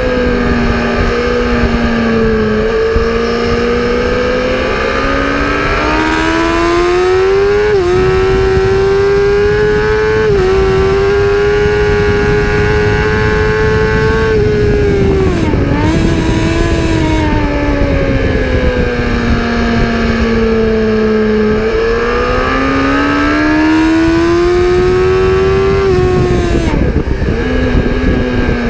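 Racing engine heard onboard during a lap of a race circuit, over a steady rush of wind and road noise. The engine pitch climbs under acceleration with quick upshifts about eight and ten seconds in, dips sharply with a blip around the middle, falls away while slowing, then climbs again before dropping near the end.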